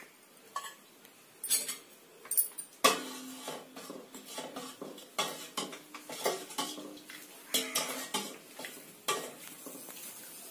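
Steel ladle stirring payasam in a stainless steel pot, clinking and scraping against the pot's sides and bottom in irregular strokes that thin out near the end.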